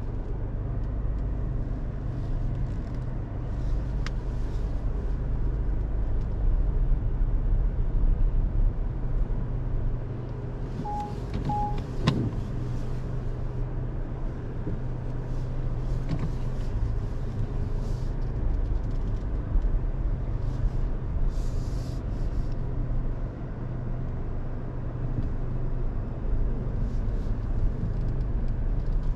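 A 2022 Mazda3's 2.0-litre SKYACTIV-G engine running steadily as the car moves at low speed. Two short beeps come about eleven seconds in, followed by a sharp click.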